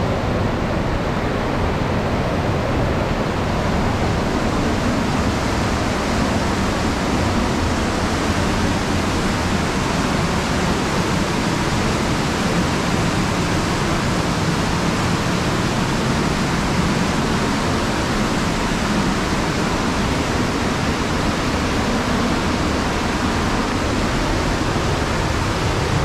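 Whitewater mountain river rushing steadily over rocks.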